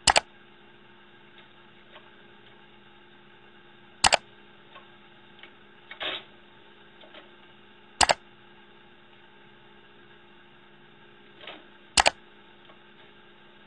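Four sharp double clicks, evenly spaced about four seconds apart, over a steady hum, with a few fainter ticks in between.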